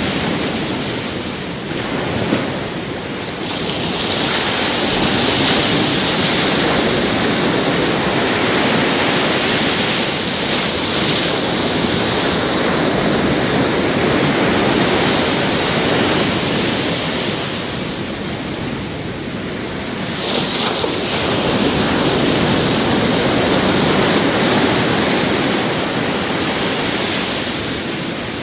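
Pacific Ocean surf breaking and washing onto a beach: a steady hiss of waves that swells and ebbs. A long surge of washing water builds about four seconds in and fades after about sixteen seconds, and a second one starts about twenty seconds in.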